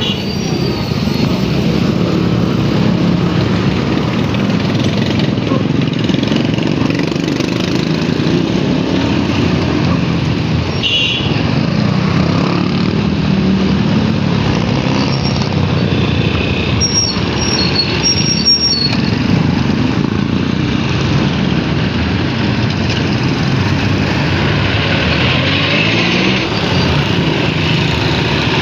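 Motor vehicle engine running steadily amid road traffic noise, with a few short high-pitched squeaks partway through.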